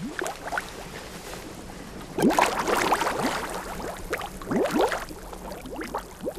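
Water sloshing and gurgling in a shallow pool of wet clay, in uneven bursts of splashes, loudest about two seconds in and again near five seconds.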